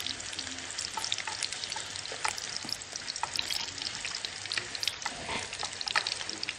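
Potatoes and sausages frying in hot oil in two frying pans: a steady sizzle full of small crackling pops, with light scrapes and taps of a utensil as the potatoes are turned.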